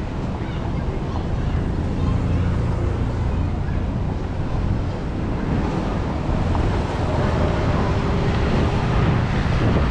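Beach ambience: a steady wash of surf mixed with wind buffeting the microphone, with faint voices in the background.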